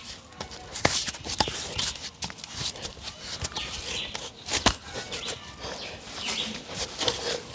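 Irregular scrapes and sharp knocks of hands and bare feet gripping and pushing against the rough bark of a breadfruit tree trunk as a man climbs it.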